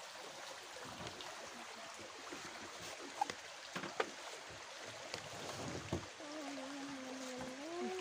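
Steady rush of a mountain stream flowing over rocks, with a few sharp clicks around the middle and a drawn-out voice-like sound near the end.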